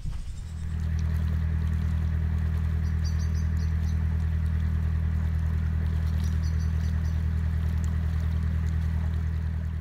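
Narrowboat's diesel engine running steadily as the boat cruises, a low, even chugging that fades in within the first second. Faint bird chirps twice.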